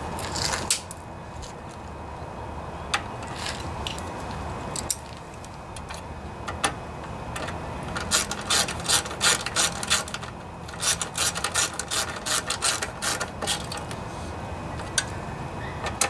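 Ratchet wrench clicking as gas tank bolts are run in on a mower engine: a few lone clicks and taps at first, then two quick runs of ratcheting clicks about two seconds each, around the middle and a little after.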